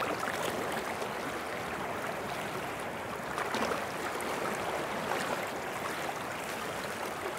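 Surf washing over sand: a steady hiss of moving water, dotted with many small splashes.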